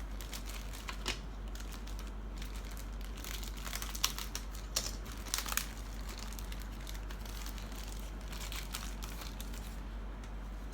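Crinkling and rustling of plastic kit packaging as the model kit's body parts are handled, with a few sharper crackles about halfway through, over a steady low hum.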